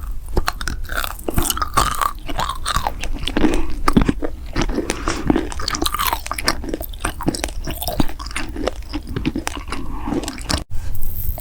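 Close-miked eating sounds: a person biting and chewing crunchy food, with many irregular crackles and crunches and wet mouth sounds. There is a momentary break about ten and a half seconds in.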